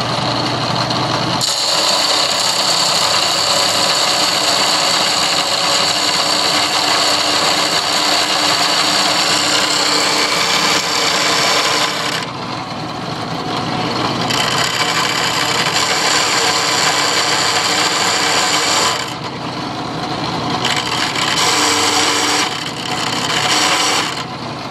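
Drill press spinning a grinding wheel that grinds the end of a piece of round stock: a loud, harsh grinding hiss starts about a second and a half in over the motor's running hum, and breaks off briefly three or four times as the wheel is pulled off the work.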